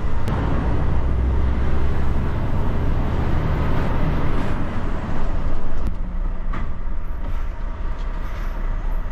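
Volvo lorry's diesel engine running as the truck drives, heard from inside the cab with road noise, pulling a load of just under 44 tons. The engine sound is fuller for the first few seconds and drops back about six seconds in.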